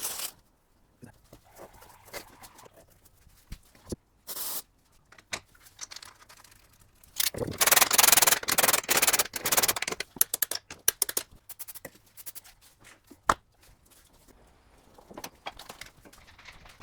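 Hand-work noises on suspension parts: irregular scraping and rubbing with scattered clicks. There is a loud stretch of rubbing about seven to ten seconds in and a single sharp knock about thirteen seconds in.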